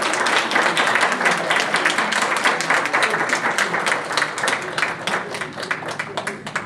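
Audience applauding, the claps thinning out and dying away near the end.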